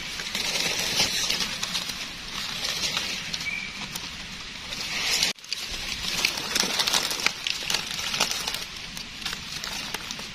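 Rustling and crackling of dry forest leaf litter being walked through and handled, full of small clicks, with a brief dropout about five seconds in.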